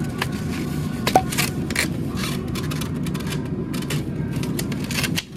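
Egg cartons being handled and opened at a refrigerated store case: a run of light clicks and scrapes over a steady low hum, with one sharper tick about a second in.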